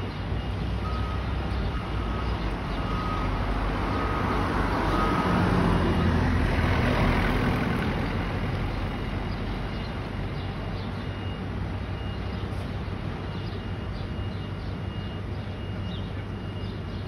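A Scania fire engine's diesel engine idles as the truck reverses into its bay, its reversing beeper sounding about once a second for the first five seconds. A car drives past close by midway, the loudest moment, and the engine rumble goes on steadily after it.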